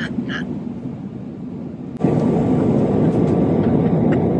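Steady rushing drone of an airliner cabin in flight, the jet's engine and air noise, jumping louder about two seconds in.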